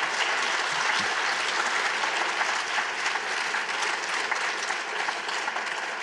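Audience applauding: a steady run of many hands clapping that eases off slightly near the end.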